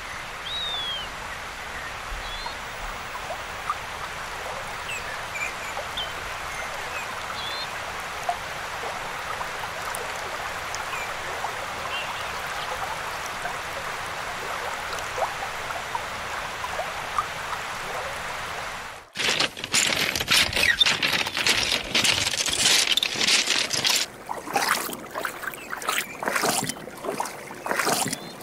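River water rushing steadily over a shallow pebble bed, with scattered short bird chirps. About two-thirds of the way through it cuts abruptly to louder, uneven gurgling and splashing of water close to the microphone.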